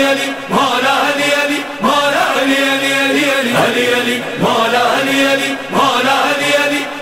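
Devotional chanting, a short vocal phrase sung over and over.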